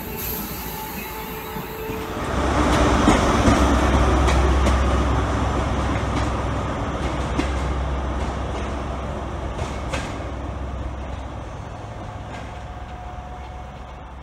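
A Merseyrail Class 507 electric unit pulling out, with a faint motor whine. About two seconds in, a much louder low rumble from an HST's diesel power car takes over and fades steadily as the train draws away.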